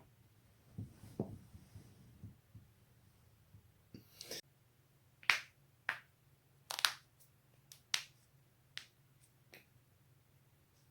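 Spinal joints being cracked: soft low thuds, then from about four seconds in a run of sharp pops and cracks, about eight in all, the loudest a second or so after the first.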